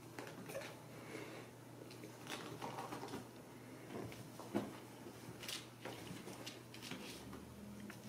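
Faint, irregular light taps, scratches and rustles of Ragdoll kittens scampering and clawing over an upholstered settee and a magazine, with a few sharper clicks.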